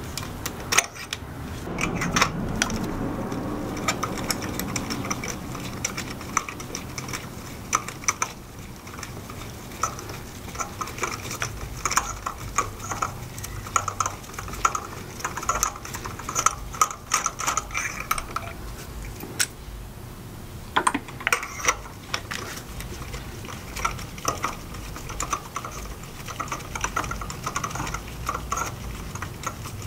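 A 3/8-inch hand ratchet with a spark plug socket clicking in quick runs, with pauses, as spark plugs are loosened and backed out of the engine.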